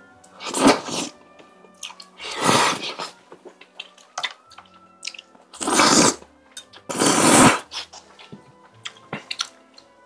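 A person slurping spicy tteokbokki and its sauce from a bowl: four loud, long slurps with small wet chewing sounds between them. Soft background music runs underneath.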